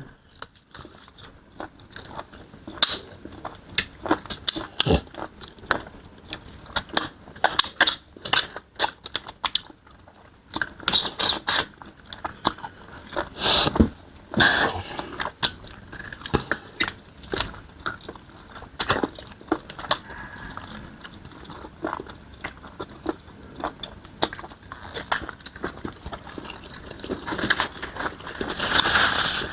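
Close-up eating sounds of smoked chicken being chewed, bitten and crunched, bone included, as many irregular short clicks and crackles. They are thickest around the middle, with a louder stretch near the end.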